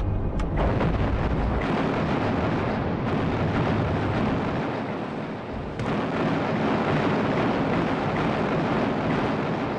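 Heavy naval guns firing in a bombardment: loud blasts that run into a long rolling rumble, with fresh blasts about half a second in, just under two seconds in and about six seconds in.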